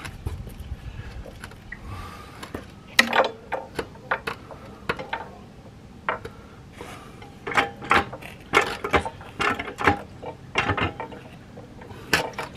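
Ratchet mechanism being worked: irregular metallic clicks and clacks, a loose group about three seconds in and a busier run from about seven to eleven seconds.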